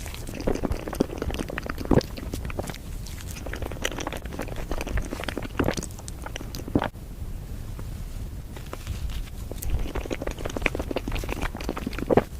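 Close-miked eating sounds: a person chewing, with many small irregular clicks and a few louder bites or crunches, the sharpest about 2 seconds in and near the end.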